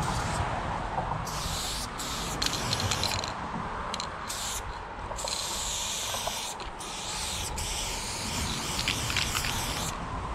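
Aerosol spray paint can hissing through a Montana Level 6 fat cap in a string of bursts of uneven length, some short and some several seconds long, as a fill is sprayed. A steady low rumble runs underneath.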